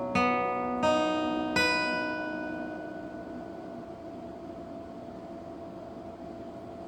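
Acoustic guitar's closing chords: three strums in the first two seconds that ring out and fade, leaving only faint room noise.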